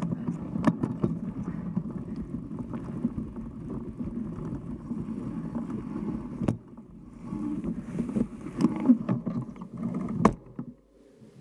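Mountain bike's knobby front tyre rolling over rough grassy ground, a steady rumble and rattle with sharp knocks from bumps, two of them loud. The noise dies away shortly before the end as the bike comes to a stop.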